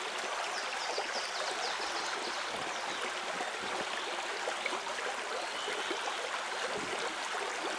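Fast shallow water of a small taiga river running over a stony riffle: a steady, even rushing hiss.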